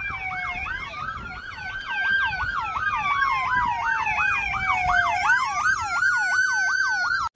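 Emergency vehicle sirens: a fast yelp sweeping up and down about three times a second over a slower wail that falls in pitch and then rises again, cutting off suddenly at the end.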